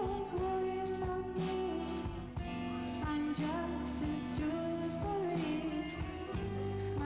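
Live indie rock band playing: a woman sings long held, gliding notes over electric guitars, bass guitar and a drum kit with regular drum hits and cymbals.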